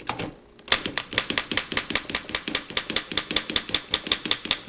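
Century-old manual typewriter clattering: after a brief pause, a rapid, even run of sharp mechanical clicks, about seven a second, as the machine is worked toward the end of the line.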